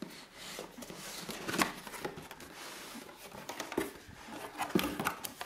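Cardboard shipping box being opened by hand: irregular scrapes, taps and rustles as the lid and inner flaps are lifted and folded back.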